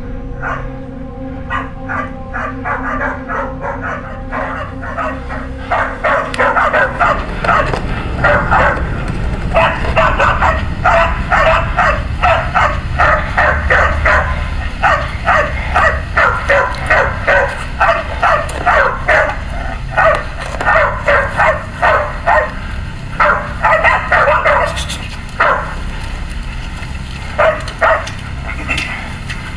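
Dog barking rapidly and over and over, about three barks a second, getting louder and more continuous about six seconds in, with a few short pauses near the end.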